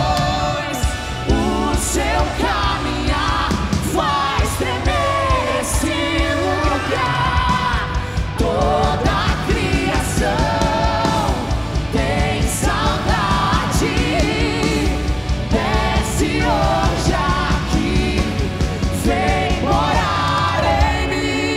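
Live Christian worship song: a lead singer sings over a full band with bass and a steady drum beat.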